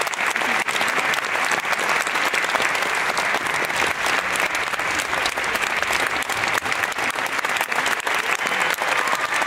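Audience applauding: dense, steady clapping that does not let up.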